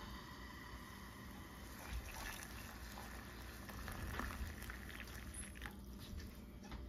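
Just-boiled water poured from a metal saucepan into a ceramic mug over a tea bag: a faint, splashing pour.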